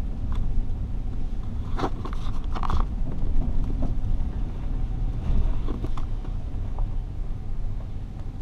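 Vehicle driving slowly over a rough dirt forest track: a steady low rumble of engine and tyres, with a few knocks and rattles, a cluster about two to three seconds in and another near six seconds.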